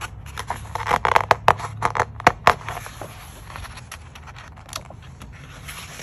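A large book's paper page being turned by hand: crisp crackling and rustling paper, loudest about a second in, easing off after about three seconds.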